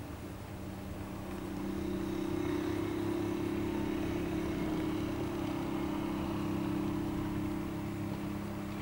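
Steady mechanical drone with two level tones over a low rumble, growing louder about a second and a half in and easing a little near the end.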